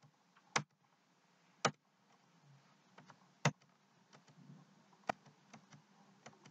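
Computer keyboard keys pressed one at a time, a handful of sharp single clicks at irregular spacing that come closer together near the end, over a faint low hum.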